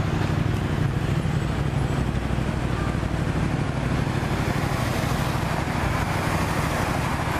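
Road traffic noise: a steady low hum of car engines with a continuous hiss over it.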